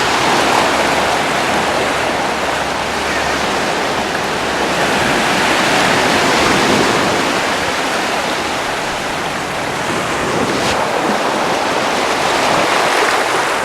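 Ocean surf washing onto a beach, a steady rush of breaking waves that swells and eases every few seconds.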